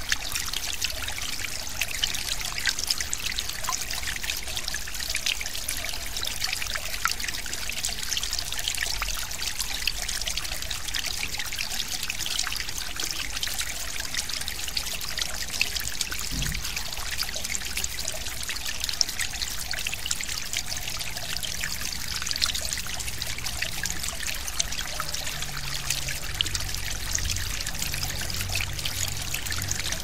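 Small forest stream flowing, a steady babbling trickle with fine splashy detail. A faint low hum joins in during the last third.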